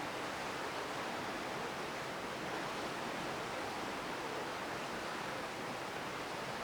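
Steady, even rushing hiss of sea and wind heard from a ship at sea, with no distinct events.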